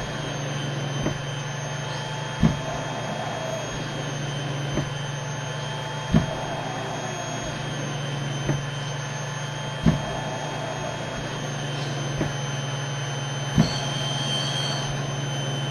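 Cough assist (mechanical insufflation-exsufflation) machine running a treatment round: a steady blower hum with a sharp valve click at each change between inhale, exhale and pause. The clicks come in pairs about a second and a half apart, repeating about every four seconds, four cycles in all.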